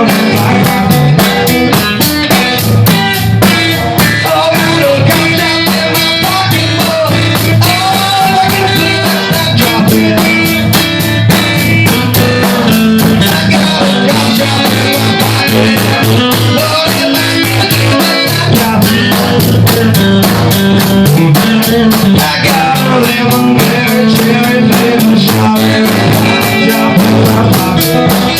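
A band playing a guitar-led rock song, with guitar over a drum kit keeping a steady beat.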